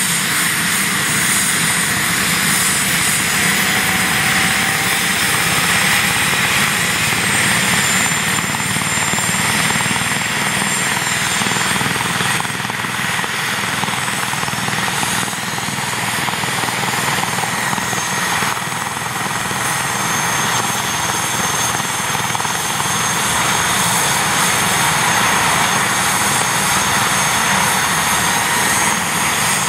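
Airbus H145 (EC145 T2) rescue helicopter running on the ground with its main rotor turning. It makes a steady turbine whine over the rotor and engine noise.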